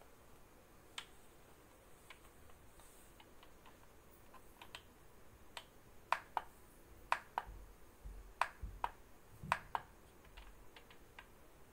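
Sharp, irregular plastic clicks, some in quick pairs, mostly in the second half, from fingers pressing on the shell of a turtle star-projector night light, the kind of click its shell buttons make when switching the light modes.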